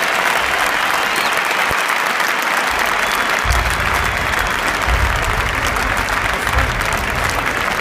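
Large stadium crowd applauding steadily as a new signing is paraded in front of the stands, with a low rumble joining about halfway through.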